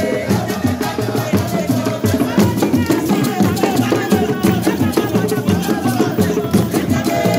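Small skin-headed hand drums struck with bare hands in a fast, steady traditional rhythm, with voices singing over them.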